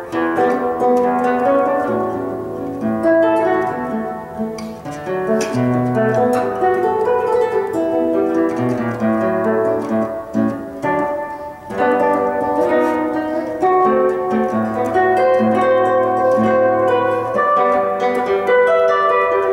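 Solo classical guitar played fingerstyle: a flowing line of plucked notes over held bass notes, the notes ringing into one another.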